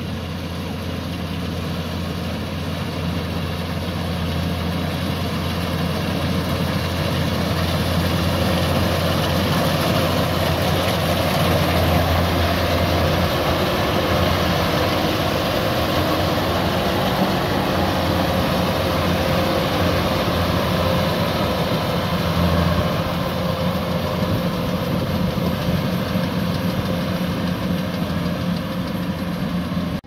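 Kubota DC-105X rice combine harvester running steadily as it cuts rice: diesel engine hum and threshing machinery. It grows louder over the first several seconds as the machine comes close and stays loud through the middle.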